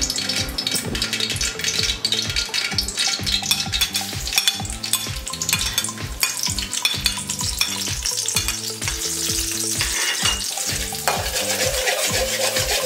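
Chopped garlic and red chilies sizzling in hot oil in a steel wok, with a metal spatula scraping and clicking against the wok as they are stir-fried.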